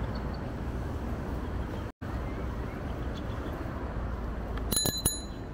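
Steady wind rush and road-traffic noise heard from an electric bike riding along a city street, with a momentary dropout of all sound about two seconds in. Near the end a bicycle bell rings twice in quick succession.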